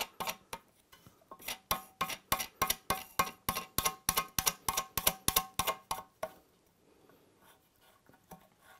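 Plastic sink-waste back-nut being wound up its thread by hand, clicking rapidly at about five clicks a second, then stopping about six seconds in.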